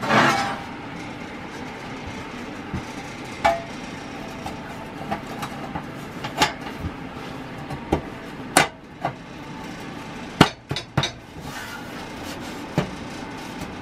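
Rusty sheet-steel tractor hood clanking and knocking as it is set down and shifted into place on the grille and dash, a string of sharp separate metal knocks with brief ringing, the loudest right at the start and about eight and ten seconds in.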